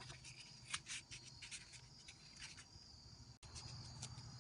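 Nearly quiet background: a faint steady low hum with scattered faint ticks and rustles.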